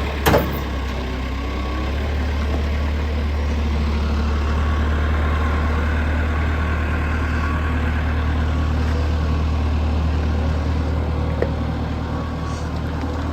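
Heavy diesel truck engine running steadily at low speed while the truck is maneuvered, getting slightly louder over the first few seconds. A brief sharp sound with a quickly falling pitch cuts in near the start.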